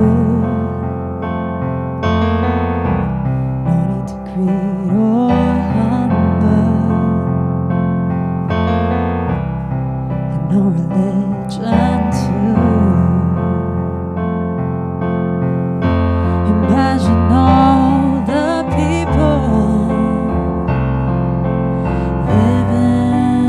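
A woman singing into a microphone, accompanied by chords on a digital piano; her held notes waver with vibrato.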